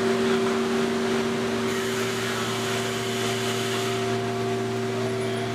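Steady drone of cabinet-factory machinery, a constant hum at several fixed pitches over a noisy rush. A faint hiss comes in about two seconds in and stops about four seconds in.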